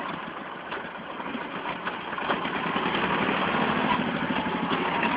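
Władimirec T-25 tractor's two-cylinder air-cooled diesel running under load as the tractor drives through deep mud, getting louder about two seconds in.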